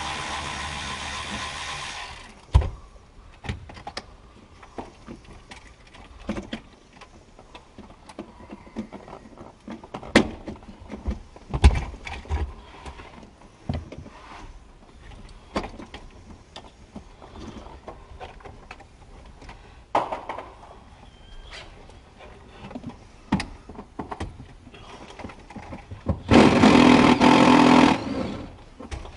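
Scattered clicks, knocks and clunks of tools and plastic dash parts being handled under a Ford F-150's dashboard. A steady sound fades out about two seconds in, and a louder steady sound lasts about two seconds near the end.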